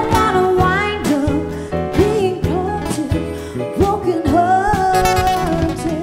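Female vocalist singing into a microphone over a live band accompaniment, ending on a long held note.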